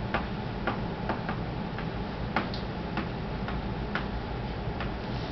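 Chalk tapping against a chalkboard while a word is written: sharp, uneven clicks about twice a second over a steady low room hum.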